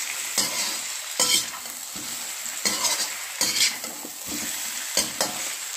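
Chicken pieces with onion and ginger-garlic paste sizzling in hot oil in an iron kadhai while a metal spoon stirs them, scraping and knocking against the pan several times.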